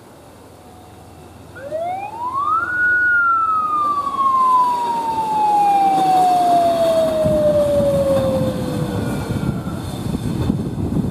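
A single siren-like whine rises sharply, then slowly falls over about six seconds, while the loud rumble of a passing train builds up and goes on.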